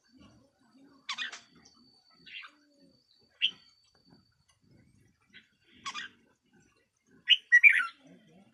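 Red-whiskered bulbul calling in short, separate chirps a second or two apart, ending in a louder quick burst of notes.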